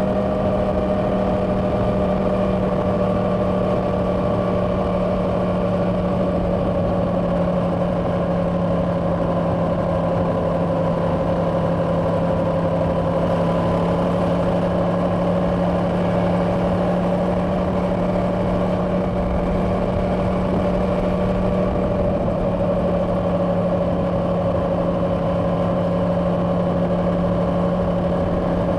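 Yamaha R1's crossplane inline-four engine on stock exhaust, running at a steady highway cruise, its pitch easing slightly in the first several seconds and then holding level, with wind rushing past.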